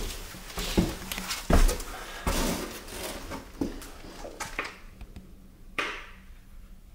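A run of irregular knocks and thuds with rustling between them, the loudest about a second and a half in, then sparser hits near the end.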